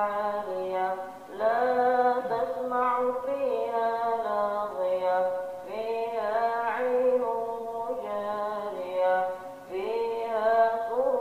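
A singing voice chanting a slow melody in long phrases, with drawn-out, wavering held notes and short pauses between phrases.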